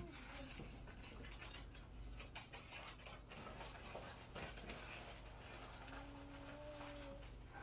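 Faint clicks and scrapes of a metal spoon against a ceramic bowl during spoon-feeding, with a soft held hum lasting about a second near the end.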